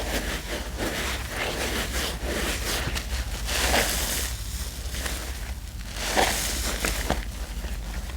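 Thick laundry-soap paste being worked as more detergent goes in: irregular wet squishes and crackles, with louder ones about three and a half and six seconds in.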